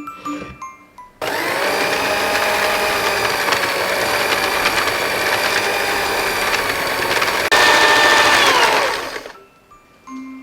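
Electric mixer motor running steadily with a whine while mixing bread dough. About six seconds in it jumps to a higher, louder speed, then is switched off and winds down with a falling whine.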